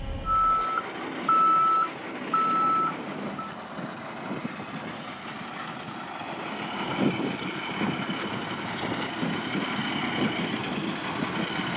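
A school bus's reversing alarm beeps three times, about once a second, and cuts off short on a fourth beep. After that, steady noise of the vehicle and surroundings continues.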